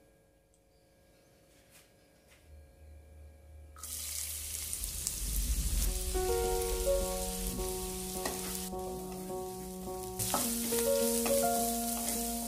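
Chopped onions and green chillies sizzling in hot oil in a non-stick pan while a spatula stirs them; the sizzle starts suddenly about four seconds in and dips briefly about two-thirds of the way through. Soft background music with sustained notes joins about halfway.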